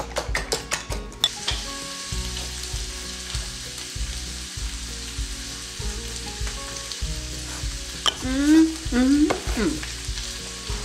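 Food frying in a skillet on a gas range, a steady sizzle with stirring. It opens with about a second of rapid clicking, and near the end a person makes a few short rising hums.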